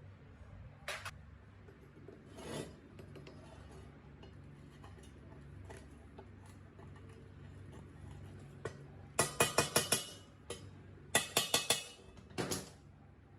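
Hard metal parts clinking and tapping against each other: a few single clicks, then two quick runs of about five or six strikes each in the last few seconds, over a faint steady low hum.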